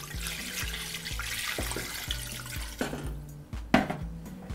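Cold water poured from a glass measuring jug into a stainless steel stockpot, splashing onto the pork bones for about three seconds, then a sharp knock shortly before the end. Background music with a steady bass line runs underneath.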